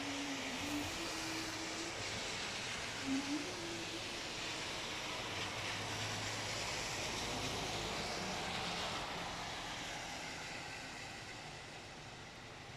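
Steady rain falling on a wet street, an even hiss of rainfall, easing slightly near the end. A short pitched sound cuts through twice in the first few seconds.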